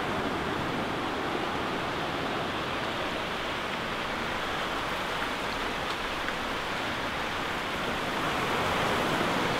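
Ocean surf washing in over the sand at the water's edge, a steady rushing wash that swells slightly near the end.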